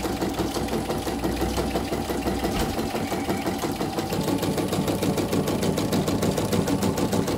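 CNY portable embroidery machine stitching steadily, its needle bar making rapid, even strokes through the fabric. This is a test stitch-out after a repair for a dropping presser foot, and the machine is judged fine with no other fault.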